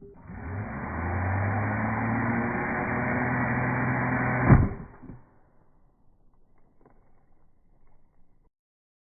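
Battery-powered chainsaw spinning up and running steadily at full speed. About four and a half seconds in there is a sharp thump and the saw stops within half a second: the chain has met the chaps and their fibers jam it.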